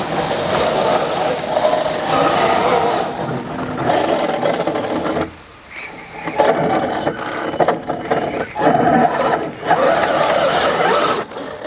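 Electric drivetrain of a 1:5 scale RC rally car, a brushless 2200 motor driving all-steel gears, whining as it surges on and off the throttle, with tyres scraping on hard, dry dirt. The whine drops away briefly about five seconds in, then comes back in bursts.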